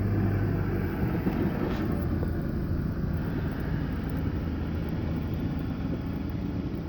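Snowplow truck engine running steadily with a low hum.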